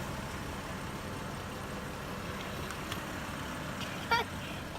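Car engine running steadily with a low rumble, with a few faint clicks and a brief high-pitched sound about four seconds in.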